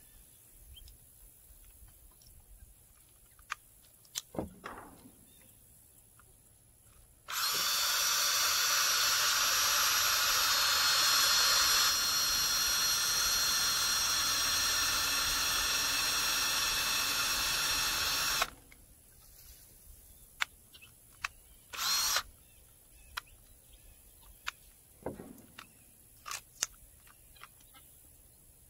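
Cordless drill running steadily for about eleven seconds as it drives into a wooden frame. A few seconds later it gives one short burst of about half a second. Light clicks and knocks come before and after.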